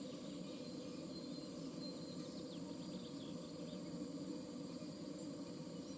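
Small songbirds giving a few short, faint high chirps about two to three seconds in, over a steady low background hum.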